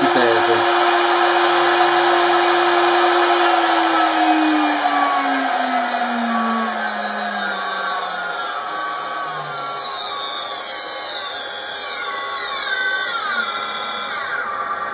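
Inverter-driven CNC router spindle motor running at high speed, then slowing down: its whine holds steady for the first few seconds and then falls steadily in pitch, leaving a thin high steady tone near the end.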